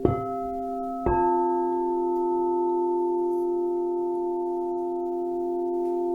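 Singing bowls struck twice, at the start and again about a second in, each strike leaving several steady tones ringing on together.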